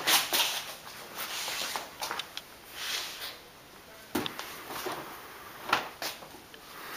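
Footsteps on a hard floor at first, then scattered knocks and rustles as things are handled, the sharpest knock about four seconds in.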